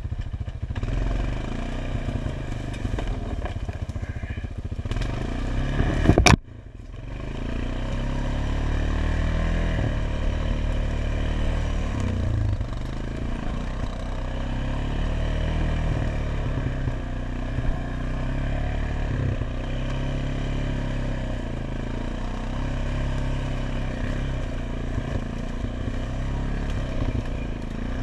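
ATV engine running steadily, with a single sudden sharp crack about six seconds in.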